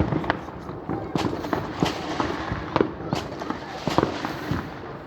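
Fireworks going off: an irregular series of sharp bangs and cracks, several of them every second.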